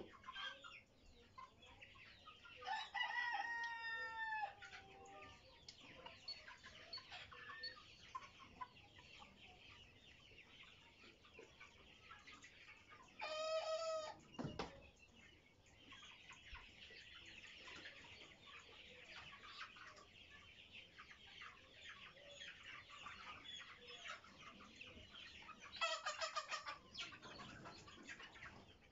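A flock of tiger chickens clucking and chirping, with three long crowing calls from young roosters: about three seconds in, around the middle, and near the end.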